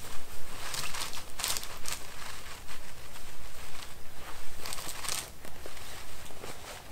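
DD Hammocks camping hammock fabric rustling and swishing as it is handled and spread out by hand, in short irregular swishes, loudest about one and a half seconds in and again around five seconds in.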